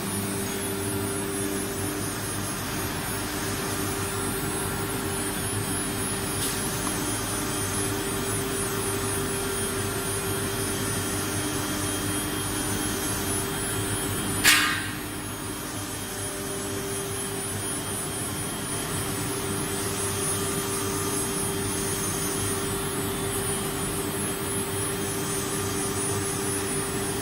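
CNC router spindle running steadily with a constant whine while machining wooden door material, and one short, sharp, loud noise about halfway through.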